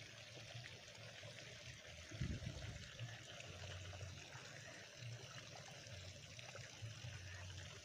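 Faint, steady trickle of a stream flowing, with a brief low thump about two seconds in.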